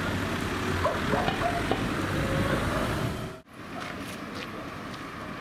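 Street ambience with a vehicle engine running as a low steady hum, cut off abruptly about three and a half seconds in and followed by a quieter street background.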